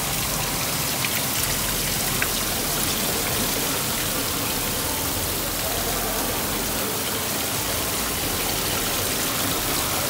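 Artificial rain showering down in an indoor rainforest exhibit: a steady, even hiss of falling water.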